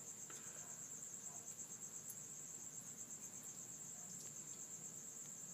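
A cricket trilling steadily, a high, continuous pulsing chirr.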